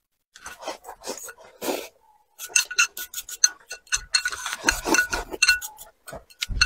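Close-miked eating: wet chewing of spicy fried food, with chopsticks rasping and clinking against a glazed ceramic bowl as it is scraped out. The strokes come in quick, irregular runs, thickest in the second half, with some low rumbling mixed in.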